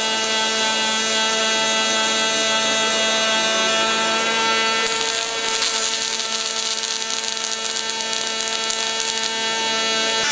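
Robotic MIG welding arc crackling and sputtering irregularly, strongest from about halfway through to near the end. Under it runs a steady hum with several pitches.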